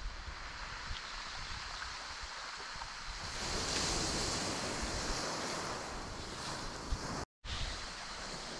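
Sea waves washing ashore, with wind on the microphone; the wash grows louder and hissier about three seconds in. The sound drops out completely for a moment near the end.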